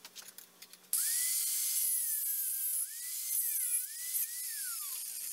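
High-speed rotary power tool starting about a second in with a high whine. Its pitch dips a few times as it is loaded, then winds down near the end.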